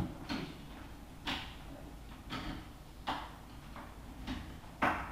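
Soft footsteps on a tiled floor, about one a second, as a person walks across a small room.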